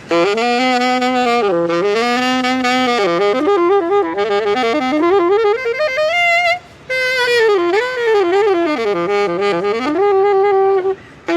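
Solo saxophone playing an unaccompanied jazz line: a rising run climbs to a high note about six seconds in, breaks off briefly, then falls away in slower phrases and stops near the end.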